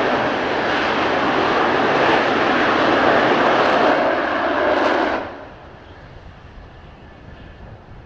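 Twin J79 turbojets of an F-4EJ Kai Phantom running on the ground, a loud steady jet roar. About five seconds in it falls away abruptly, leaving a much fainter rumble.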